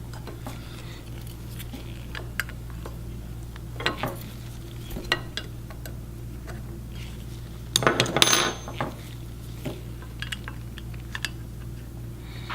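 Small metal coil springs clinking and clicking as they are handled and pushed one by one into the spring cavities of a plastic part, with a louder cluster of clatter about eight seconds in.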